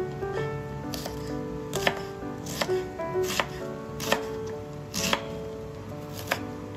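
A knife slicing through a head of cabbage and knocking on a bamboo cutting board, about one cut a second, over background music.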